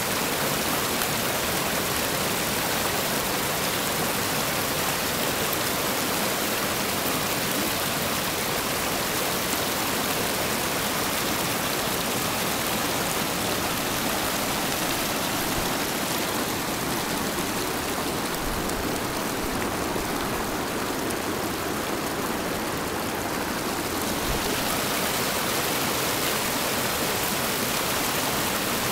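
Whitewater rapids of the Cossatot River rushing steadily over rock ledges and boulders. The hiss of the water softens a little for several seconds just past the middle, then comes back.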